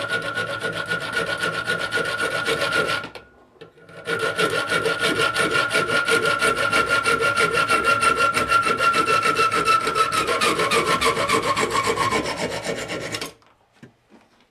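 Carbide saw blade rasping through a galvanized nail clamped in a bench vise: fast back-and-forth strokes with a steady metallic ringing. The strokes pause for about a second early on, then run again until the nail is cut through shortly before the end. The ringing sinks in pitch in the last few seconds of sawing.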